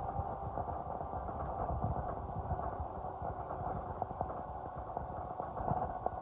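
Inside the passenger saloon of a Volvo B11RT coach: the inline-six diesel running with a steady low rumble and hum, overlaid by frequent small rattles and knocks from the cabin.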